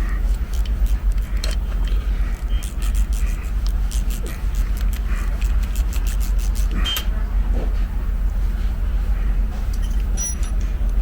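Irregular metallic clicks and clinks of hand tools as a 6 mm bolt is turned down into the tapped brake-caliper piston to jack it out of its bore, over a steady low hum.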